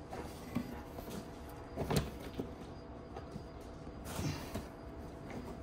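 Hard plastic body panel and tubular bumper knocking and rubbing as the bumper is worked into place through the snowmobile's front panel, a few scattered light knocks, the loudest about two seconds in.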